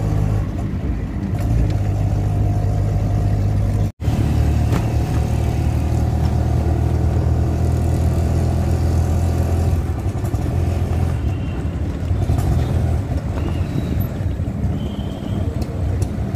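Auto-rickshaw engine running as it drives through traffic, a steady low hum with road noise, heard from inside the open cab. The sound cuts out briefly about four seconds in.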